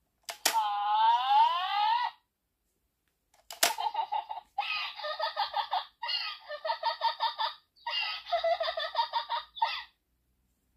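Kamen Rider toy transformation device, the Laser Raise Riser: a sharp click as it is triggered, then it plays a wavering, laugh-like voice clip. A second click about three and a half seconds in starts a longer run of rhythmic voice and sound effects from the toy.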